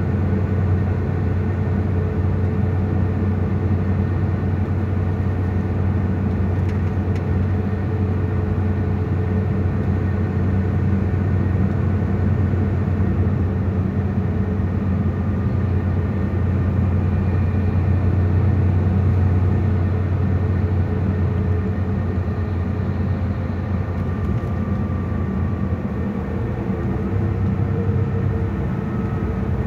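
Mercedes-Benz Tourismo coach on the move, its diesel engine and road noise heard from inside the cabin as a steady low rumble.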